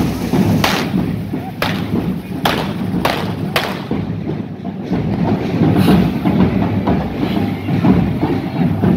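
Correfoc fireworks: five sharp bangs in quick succession in the first four seconds, the firecracker ends of the devils' hand-held spark fireworks going off, over a steady low rumble.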